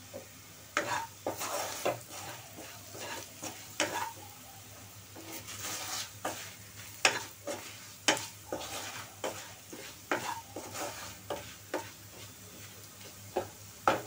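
Wooden spatula stirring and scraping onion, ginger-garlic and spice masala frying in oil in a dark-coated kadai, with irregular knocks against the pan over a soft sizzle. The masala is being browned and kept moving so it does not stick to the bottom.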